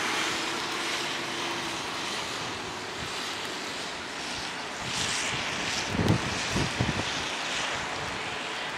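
Wind on the microphone: a steady rushing hiss, with a few low buffets about six to seven seconds in.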